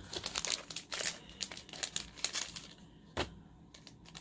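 Packaging crinkling and crackling as it is handled, densest in the first two seconds, with one sharper click about three seconds in.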